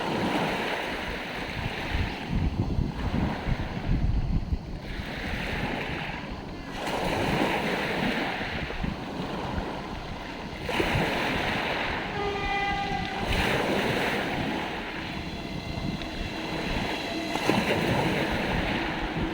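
Sea waves washing onto the shore in repeated surges, each swelling and falling away over a few seconds. About twelve seconds in, a short, steady pitched tone with overtones sounds over the surf, and fainter steady tones follow near the end.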